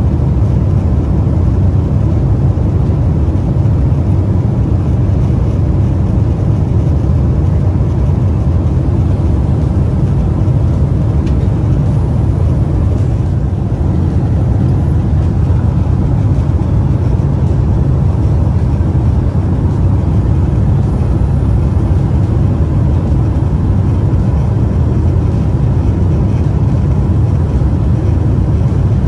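Steady low cabin noise of a Boeing 777-300 airliner in flight: engine and airflow rumble heard from an economy seat, even and unchanging.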